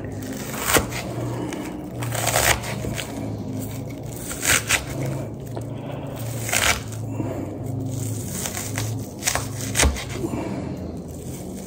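Kitchen knife cutting through a red onion on a cutting board: a dozen or so short, irregular slicing strokes and scrapes as the onion is chopped.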